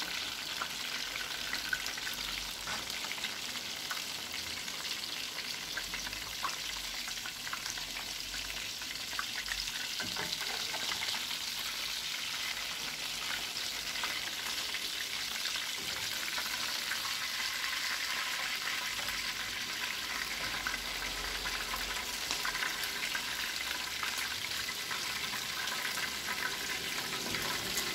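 Meatballs sizzling steadily in hot cooking oil in a nonstick frying pan, with scattered small pops and light knocks of a plastic slotted spoon lifting them out.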